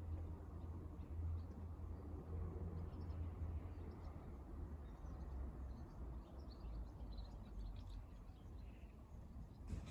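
Quiet outdoor ambience: a steady low rumble with faint, scattered bird chirps from about three seconds in, and a single click near the end.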